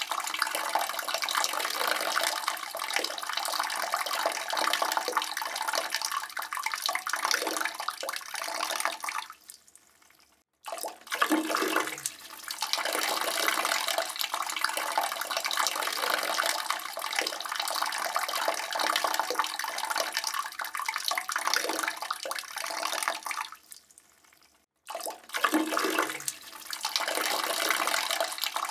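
A man urinating into a toilet bowl: a steady splashing stream that trails off and stops about ten seconds in, then starts again, and does the same once more near the end.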